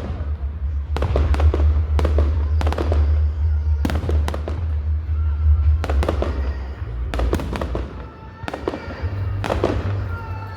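Fireworks display: shells bursting in loud bangs, about ten of them at irregular intervals, over a steady low rumble.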